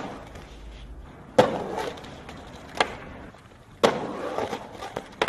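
Skateboard landing hard on asphalt after a jump down a big stair set: four sharp slaps roughly a second apart, the loudest ones followed by the wheels rolling on the street. A few lighter clacks of the board come near the end.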